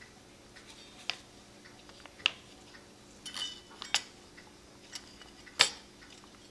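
Scattered clicks and clinks of small hard objects being handled and set down on a work surface, about half a dozen, with a brief metallic ring about halfway and the loudest click near the end.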